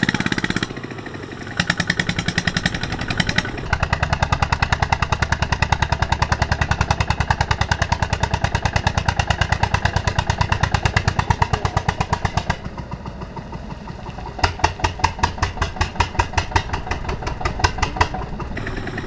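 Single-cylinder diesel engine of a two-wheel walking tractor running under load as it drags a loaded trailer through mud, with a steady, rapid putt-putt of firing strokes. The engine dips quieter just after the start and again about two-thirds of the way through, then its pulses come louder near the end.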